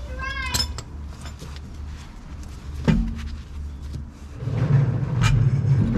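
A single clunk about three seconds in as an alloy wheel and tyre are lifted onto a car's rear brake-drum hub. From about four and a half seconds a vehicle's engine hums low and steady.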